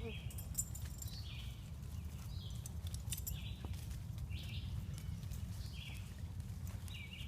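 A bird calling short, repeated notes about once a second, over the scattered crunch of footsteps through brush and a steady low rumble.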